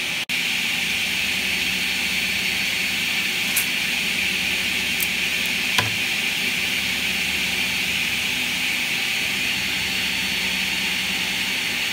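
Steady whirring hiss of workshop machinery running, with a low hum beneath it. A few faint clicks and taps, one near the middle, come from the board being handled and marked.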